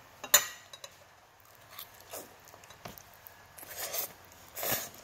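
A single sharp clink of a metal fork on a ceramic plate, then quiet chewing and two short slurps of instant noodles near the end.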